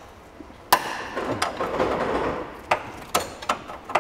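Spanner working the nut of a rear suspension track arm bolt: a sharp metallic clack about three-quarters of a second in, a rough scraping stretch, then a few spaced metal clicks as the nut is worked loose.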